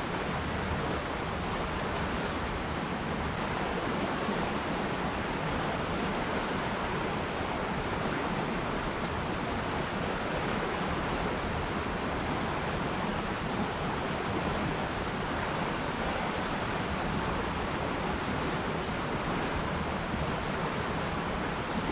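River water rushing in a steady, unbroken wash of noise, with no changes or separate splashes.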